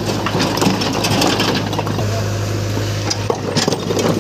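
A load of rocks spilling out of a truck's bed onto a pile, with rocks clattering and knocking against each other. An engine is running steadily underneath.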